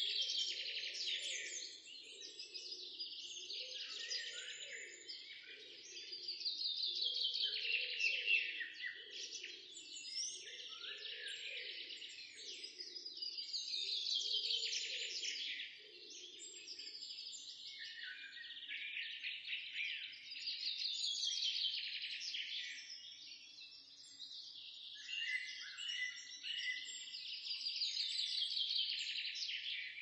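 Songbirds singing: high, busy chirping and trilling phrases that swell and ease in waves every few seconds.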